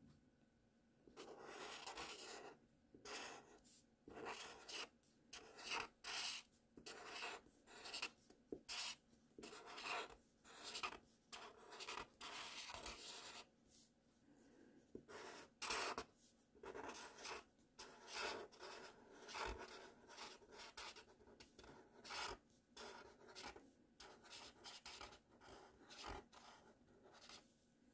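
Marker pen writing cursive letters on paper: a faint run of short scratchy strokes with brief gaps between them, and a longer pause about halfway through as the pen is lifted between words.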